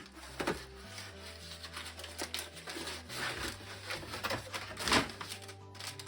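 Background music with held low notes, over scattered rustling and handling noises from a mail package being opened. The loudest handling noise comes about five seconds in.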